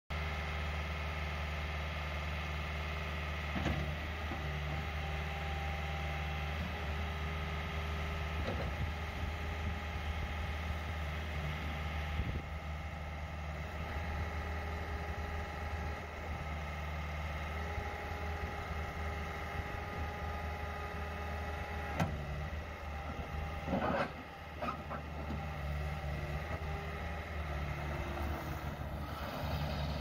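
2006 Bobcat T180 compact track loader's 2.4-litre four-cylinder turbo diesel running steadily as the machine drives and turns on its rubber tracks, with a few sharp knocks along the way.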